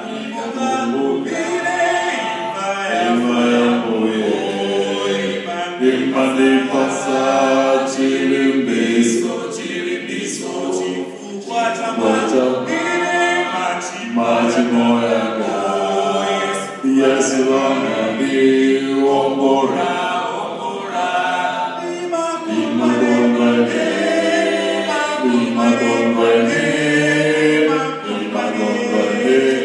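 Male a cappella vocal group of five singing a sacred song in close harmony into handheld microphones, with no instruments.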